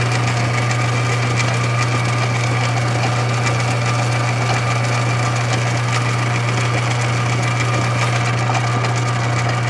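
Atlas MK-2 mini lathe running at a steady speed with a constant low hum while its carbide tool takes a light cut on a cold-rolled steel bar. The cut itself makes almost no sound, which is taken as a sign that it is cutting well.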